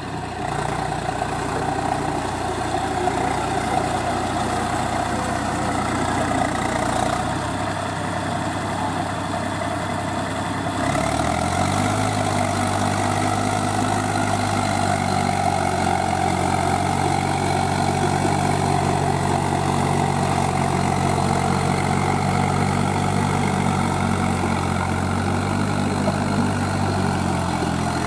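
Eicher tractor's diesel engine running steadily under load while pulling a disc plough through wet mud. About eleven seconds in the engine speeds up to a higher, steady pitch, and near the end it drops back.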